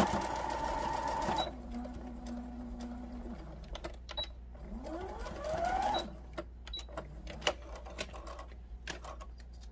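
Brother electric sewing machine stitching as the seam is finished with a backstitch, stopping about a second and a half in. A short steady hum and then a rising whine follow, with light clicks as the work is handled at the needle and pulled out.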